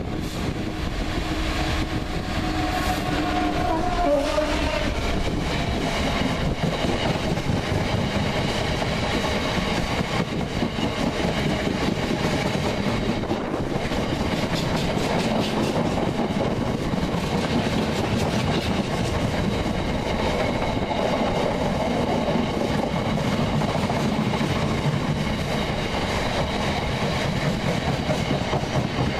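Class 66 diesel locomotive, with its EMD two-stroke engine, passing close by: its engine note drops in pitch as it goes by about four seconds in. Then a long train of open box wagons rolls past with a steady rumble and clatter of wheels on rail.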